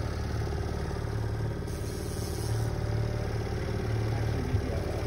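Boat's outboard motor running steadily at low trolling speed, a low even hum, with one light knock about four and a half seconds in.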